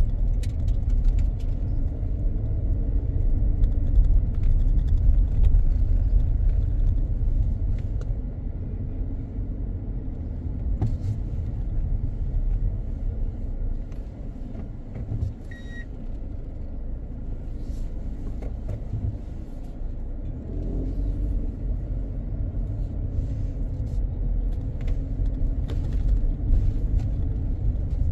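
Car driving, with a steady low road and engine rumble that quietens for a few seconds around the middle and then builds again. A brief faint beep sounds about halfway through.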